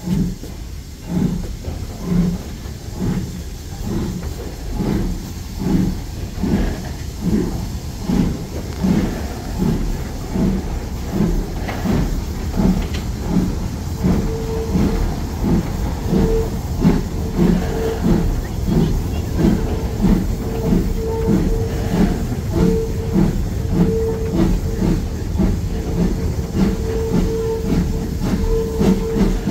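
BR Standard Class 2MT 2-6-0 steam locomotive 78022 working hard up a gradient, heard from the leading carriage, its exhaust beating steadily at a little under two beats a second. A thin, broken squeal joins about halfway through.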